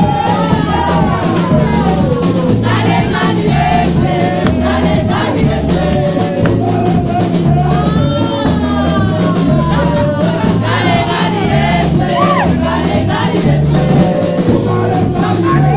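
Loud live gospel worship music: a group of women singing into microphones over a band playing a steady beat.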